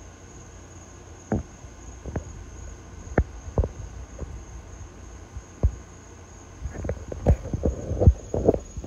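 Irregular dull thumps and bumps, typical of a phone being handled while it films: a few spread out, then a quick flurry near the end. Under them a steady faint high-pitched drone.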